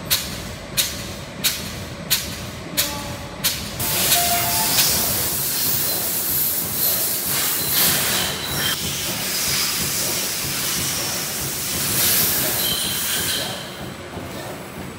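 HCI FSC-V803-2 sterilization pouch making machine running: a regular run of short, sharp strokes, about three every two seconds, for the first few seconds, then a steady hiss that eases near the end.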